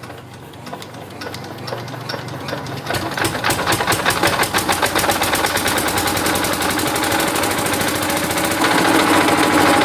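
Engine of a 5 kVA portable generator starting up: its rapid, even firing catches about a second in and builds over the next few seconds to a steady run. Near the end it gets louder again and its pitch rises as it speeds up.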